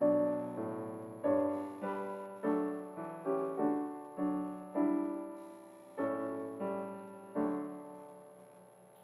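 Piano playing a slow passage of chords. Each chord is struck and left to ring and fade. The strikes come a little under a second apart, then space out, and the last chord dies away near the end.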